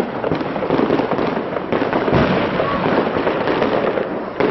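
Fireworks display: a dense, continuous run of bangs and crackling shells, with a heavier boom about two seconds in.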